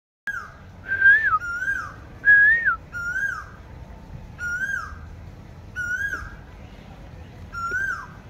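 A bird calling with clear whistled notes, each a short rising-then-falling or falling whistle, about eight in all. They come in quick pairs at first, then singly every second and a half or so.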